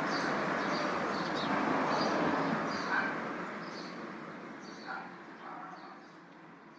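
City street ambience: a steady hum of traffic with birds chirping over it, fading out over the last few seconds.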